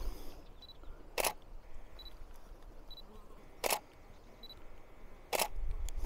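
Canon stills camera's shutter firing three single frames, each a sharp click, a second and a half to two and a half seconds apart.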